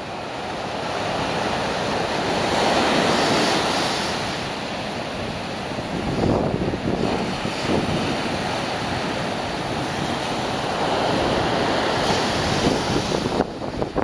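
Rough sea surf breaking on a beach, a steady wash of noise that swells and eases as the waves come in.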